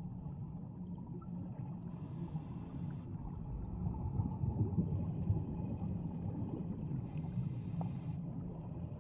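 Scuba regulator breathing heard underwater: a steady low bubbling rumble of exhaled bubbles, with two brief higher hisses about five seconds apart.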